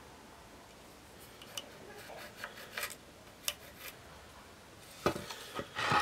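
Faint pencil scratching and small ticks on an ash board while a curve is marked out, then a few louder clicks and knocks near the end as drawing tools are handled on the board.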